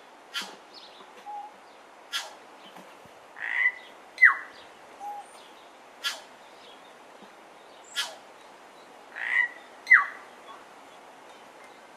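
New Zealand bellbird calling: sharp, clicky notes about every two seconds, and twice a short phrase of a buzzy note followed by a loud downward-slurred whistle.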